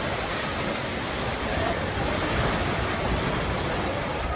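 Steady rushing roar as a multi-storey building's facade breaks away and crashes down in an earthquake, debris and dust pouring into the plaza.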